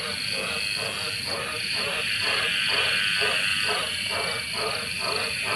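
Frogs calling on a wet night: a fast run of short, regular croaks, about four a second, over a steady high-pitched chorus.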